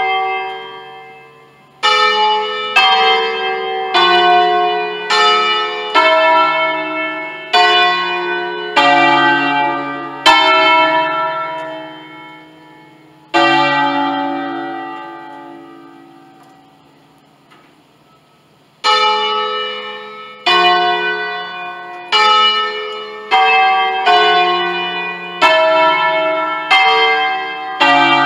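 Five church bells in D, cast by Pruneri in 1953, playing a solemn concerto, the festive peal for a solemn Mass. The bells sound one stroke at a time, each ringing on and fading. There is a string of strokes, then a single stroke left to die away for several seconds, then strokes again at about one a second.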